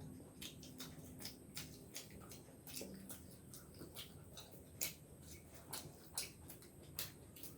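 Faint, wet chewing and lip-smacking of people eating steamed momos: an irregular scatter of small mouth clicks and smacks, several a second.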